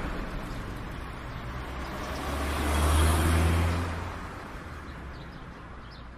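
Low rumble of a passing motor vehicle that swells about two seconds in and fades away a couple of seconds later, over steady background noise.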